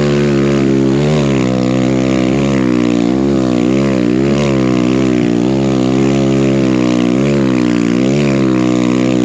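Single-cylinder four-stroke engine of a Kawasaki KLX140 big-bored to 170 cc with a BBR D3 exhaust, pulling the dirt bike through deep snow. Its revs rise and fall about once a second as the throttle is worked.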